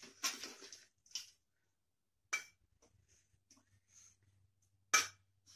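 Cream being poured from a small carton into a blender jar, with a soft noisy rush in the first second. A few light knocks and clinks of the carton against the jar follow, the sharpest about five seconds in.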